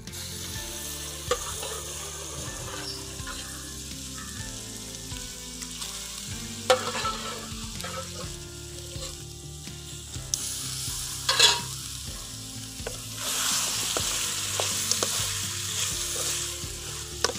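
Boiled country chicken pieces sizzling and frying in oil and ground masala in an aluminium kadai as they are stirred, with a few sharp knocks. The sizzle grows louder about three-quarters of the way through.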